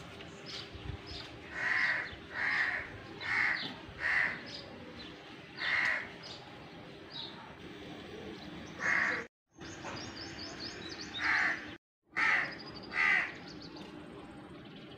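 A bird calling outdoors: about nine short, harsh calls spaced irregularly, some in quick pairs.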